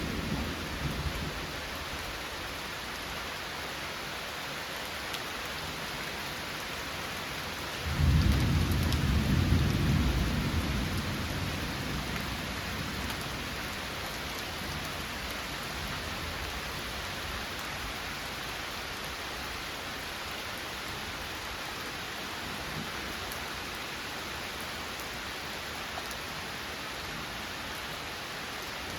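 Steady heavy rain falling, with a rumble of thunder that breaks in suddenly about eight seconds in and rolls away over several seconds.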